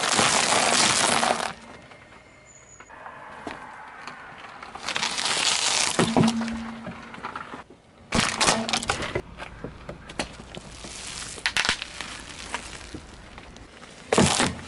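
A car tyre rolling over and crushing one object after another: waffle ice-cream cones crunching and breaking loudly in the first second and a half, then further bursts of crunching and plastic cracking from a hand-clapper toy about eight seconds in, and a gift box being flattened near the end.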